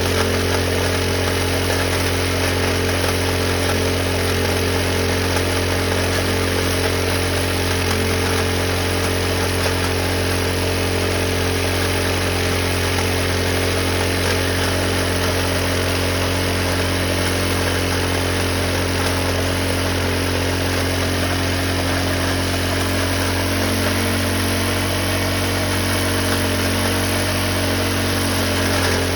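Rock drilling rig's engine running steadily, a constant low hum with no change in speed.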